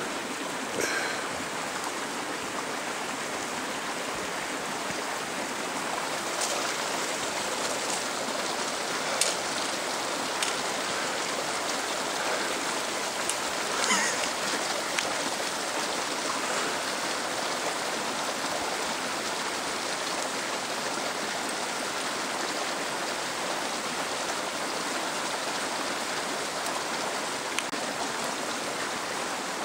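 Snowmelt mountain stream running steadily, a constant rush of water, with a few faint knocks.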